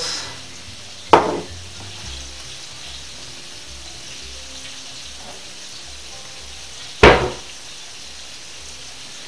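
Steady sizzle of food frying in a pan, broken by two loud, sharp knocks, one about a second in and another about six seconds later.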